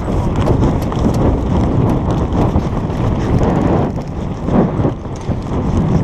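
Wind buffeting the microphone as a steady low rumble, with scattered irregular knocks.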